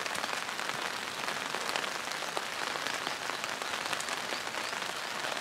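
Steady rain falling, an even hiss scattered with many short ticks of single drops landing nearby.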